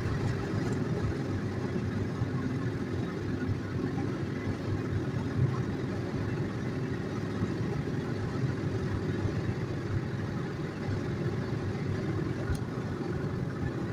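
Steady road and engine rumble inside a car cruising at motorway speed, heard from the cabin.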